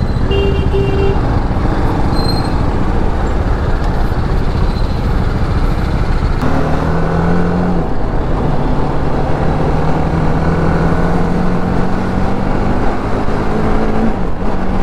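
Motorcycle engine pulling away through traffic and accelerating up the highway, its pitch climbing steadily and dropping back at gear changes, under heavy wind rush on the helmet-mounted microphone. A few short high beeps sound at the start.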